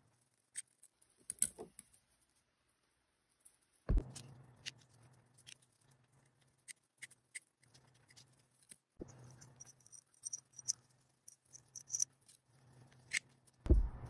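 Rotary leather hole punch pliers clicking and snapping as they are worked on a leather strap, with scattered small metal clicks. A few dull thumps come between them, the loudest near the end.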